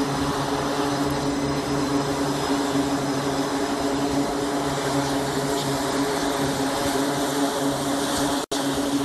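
Steady mechanical drone with a constant hum over a loud rushing noise, broken by a momentary dropout near the end.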